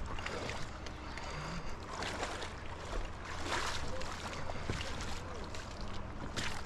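Splashing footsteps wading through shallow river water, with the inflatable wheels of a metal kayak cart rolling and knocking over rocks as a kayak is hauled out onto the bank.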